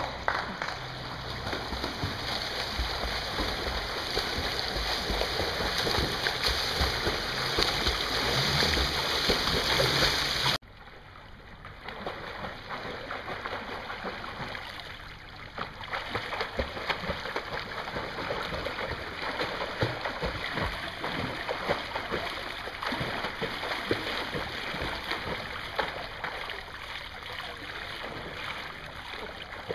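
Pool water splashing and lapping as a swimmer swims front crawl, arm strokes and kicks making a steady run of small splashes. The sound drops abruptly to a quieter level about ten seconds in.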